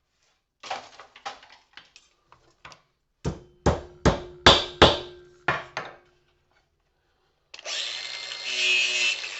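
Light clinks, then seven heavy hammer-like strikes in quick succession, smashing porcelain lamp holders to get at their brass shells, each strike with a short ringing tone. About two seconds later a power grinder starts and runs loudly.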